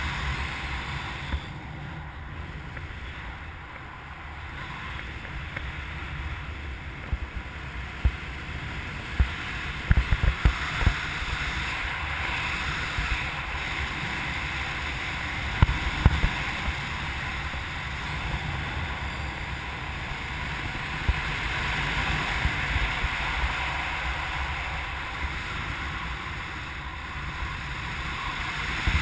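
Airflow rushing over the microphone of a camera mounted on a hang glider in flight, swelling and easing in strength. There are a few short low thumps about a third of the way in and again about halfway.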